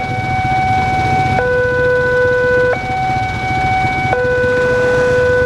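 Indonesian railway level-crossing warning siren sounding a two-tone alternating high-low pattern, switching about every one and a half seconds, warning that a train is approaching. Low engine rumble from waiting traffic underneath.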